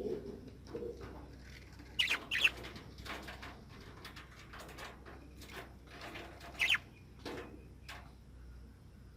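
Parrots bathing: sharp squawks, two about two seconds in and one near the end, over bouts of flapping, fluttering wings.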